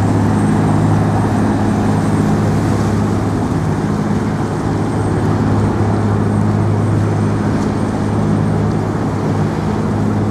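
A steady, loud low engine hum over a constant wash of city traffic noise.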